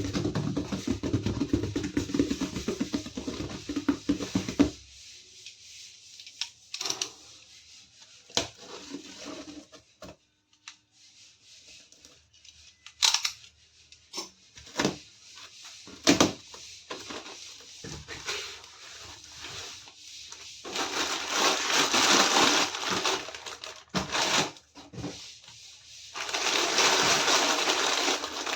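A few seconds of music, then scattered sharp clicks and knocks of small toy pieces being handled. Near the end come two loud spells of dense hissing noise, each several seconds long.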